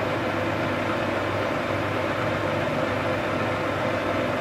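Metalworking centre lathe running steadily with the spindle and chuck turning: an even mechanical hum with a few constant tones.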